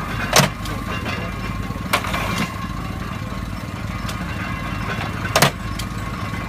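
A 1920s hay baler at work, with an engine running steadily under it. Sharp knocks cut through the engine, the loudest near the start and again near the end.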